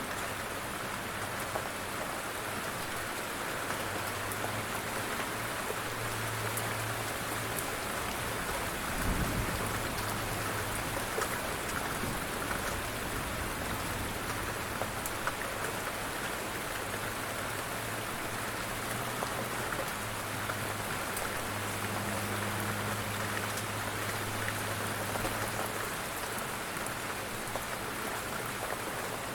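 Steady rain falling on surfaces, an even hiss with scattered individual drop ticks. A brief low thump comes about nine seconds in.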